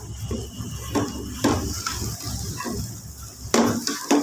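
A metal spoon scraping and knocking against an aluminium pot while stirring thick, grainy cracked-wheat porridge: a handful of irregular scrapes and clinks, the loudest near the end, over a low rumble that drops away shortly before the end.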